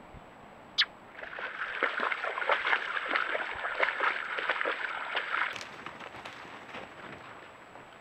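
White-tailed deer wading through shallow water, its legs splashing steadily for about four seconds before the splashing fades. A single sharp click comes just before the splashing starts.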